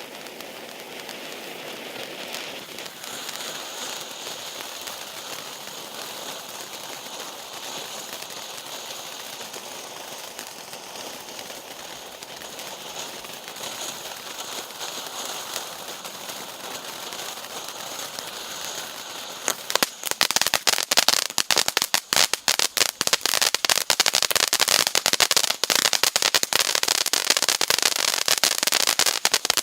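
Р4220 'Сверчок' pyrotechnic fountain burning: a steady hiss of spraying sparks, which about twenty seconds in gives way to a much louder, dense crackling.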